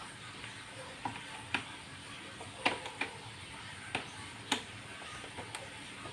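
Scattered light clicks and taps, about seven, irregularly spaced, of a screwdriver working the screws out of the casing of a Lenovo AIO 520-24IKL all-in-one PC.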